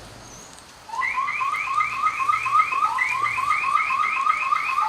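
A G4S security van's alarm sounds, starting about a second in: a loud, fast run of rising electronic chirps, about five a second, with one brief hitch. The alarm has been triggered and is left sounding.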